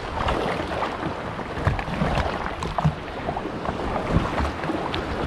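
Water splashing and sloshing against the hull of a small RC bait boat as a hooked shark thrashes beside it, with wind noise on the boat-mounted microphone.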